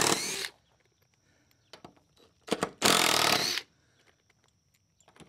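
DeWalt 20-volt cordless impact driver hammering lag screws out of a wooden door frame's hinge: a short burst of about half a second at the start, then, after a couple of brief taps, a second burst of under a second just before the middle.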